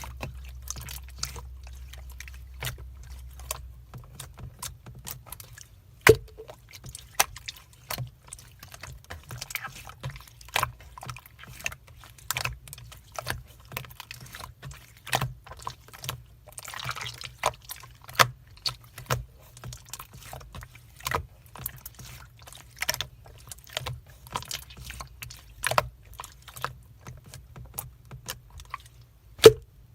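Slime being squished and poked by hand, giving irregular wet clicks and pops from trapped air, a few of them louder.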